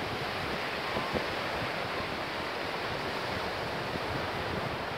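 Small waves breaking and washing up a sandy beach: a steady rush of surf, with wind buffeting the microphone.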